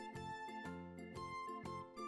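Soft background music for children, a simple melody of held notes.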